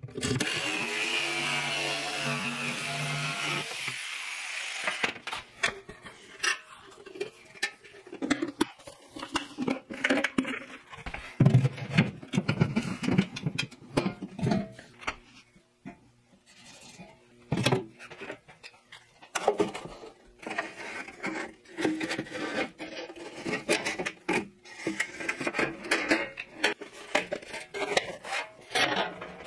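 Jigsaw running, cutting a round hole in a plywood panel for about four seconds, then stopping. Then a long run of scattered knocks, scrapes and rattles from sheet-metal duct pipe being handled and fitted into the hole.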